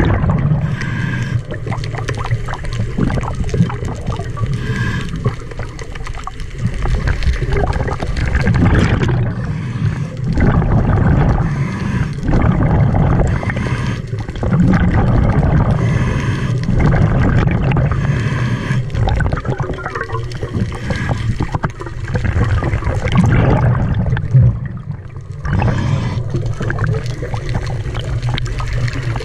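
Scuba diver breathing through a regulator underwater, heard from the diver's own camera: gurgling, rumbling exhaled bubbles in long surges of a few seconds, with short dips between breaths.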